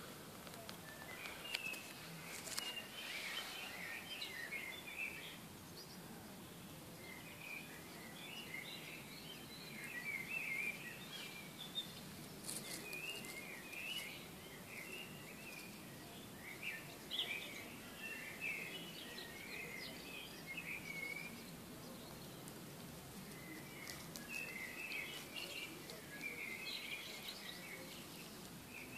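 Small birds chirping and warbling in short bursts of song, on and off throughout, over a steady faint background hiss. A few faint sharp clicks stand out now and then.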